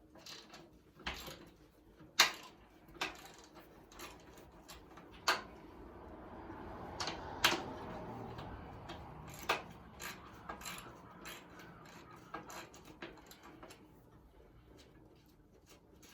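Hand tools working on metal parts during a teardown: scattered sharp clicks and knocks, with a scraping, shuffling noise that swells for a few seconds in the middle.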